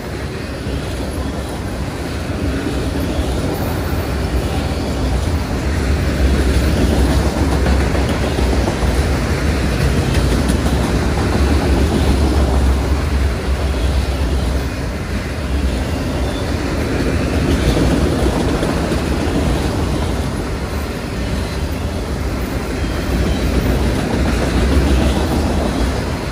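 Autorack freight cars rolling past on the rails: a steady, continuous rumble of wheels on track, swelling slightly and easing off as the cars go by.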